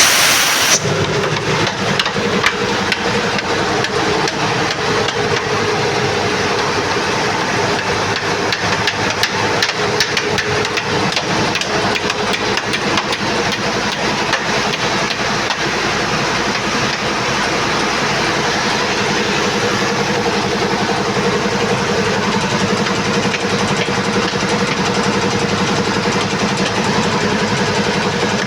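Air compressor running steadily with an even mechanical hum, opening with a brief burst of hissing air.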